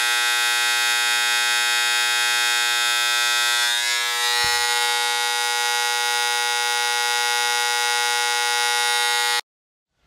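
Microwave-oven transformer, rewired with a heavy low-voltage secondary for spot welding, energised from the mains and buzzing loudly with a steady hum. The hum cuts off suddenly near the end.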